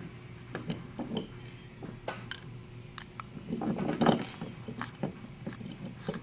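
Hand-disassembly of an Oncam GrandEye security camera: scattered clicks and taps of small metal and plastic parts being handled and pulled apart, with a louder clatter about four seconds in.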